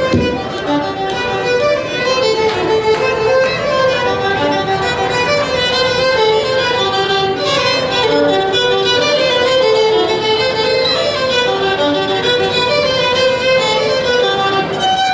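Two fiddles playing a lively tune together, a quick run of bowed notes.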